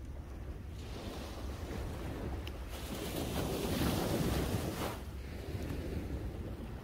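A small wave breaking on a sandy beach and washing up the shore, its rush swelling to a peak about three to four seconds in and then fading. Wind rumbles low on the microphone throughout.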